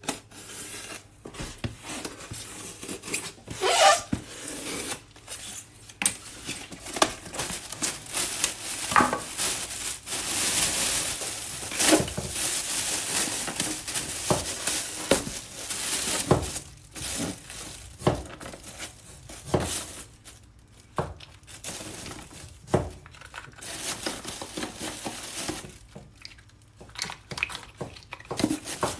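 Unpacking a foam shipping box of live oysters: a utility knife scrapes and slits the packing tape around the lid, then a plastic liner bag rustles and crinkles as it is opened. Near the end oyster shells knock and clack together as they are lifted out, with irregular sharp clicks and scrapes throughout.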